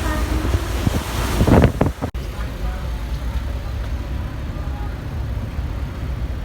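Wind buffeting the microphone over the low rumble of a ferry under way. About two seconds in it cuts suddenly to a steadier, quieter low rumble with faint voices.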